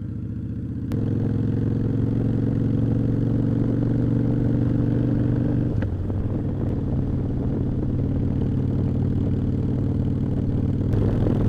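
V-twin cruiser motorcycle engine heard from the saddle. It is opened up about a second in, pulling along steadily, then changes note with an upshift around six seconds before running on.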